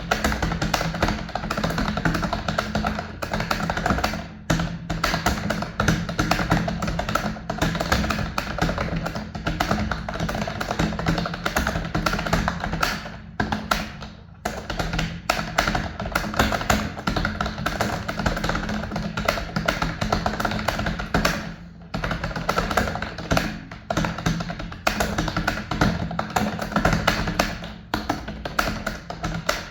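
Rapid, continuous typing on a computer keyboard, with brief pauses a few times, over background music.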